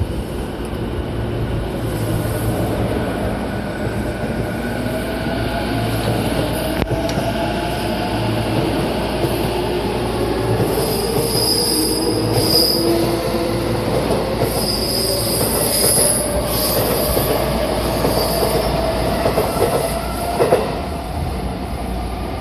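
Sotetsu 9000 series electric train pulling out of a station: the VVVF-inverter traction motor whine climbs steadily in pitch as it accelerates. Brief high-pitched squeals come through midway, and there is a short knock near the end.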